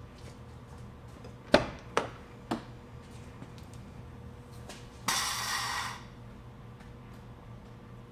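Three sharp knocks and clunks as the driver's door of a 2001 Volkswagen Beetle is opened and someone climbs in, followed about five seconds in by a second-long rush of rustling noise, over a faint steady hum.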